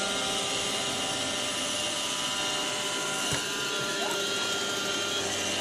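iRobot Roomba robot vacuum running as it cleans, a steady whirring hum of its motor and brushes with a few thin steady tones. A short knock about three seconds in.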